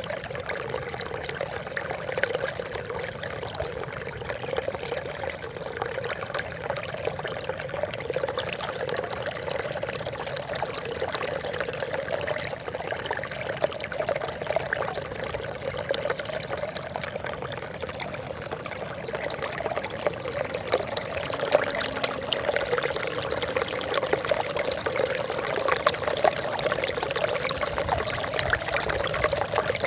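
Steady trickling, splashing water, a continuous babble of small droplets falling into water, growing slightly louder in the last third.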